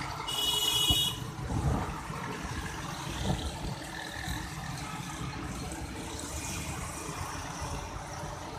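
Dense road traffic of motorcycles, auto-rickshaws and cars, a steady engine rumble and tyre noise. A high-pitched vehicle horn blares for about a second near the start, and a few fainter honks come later.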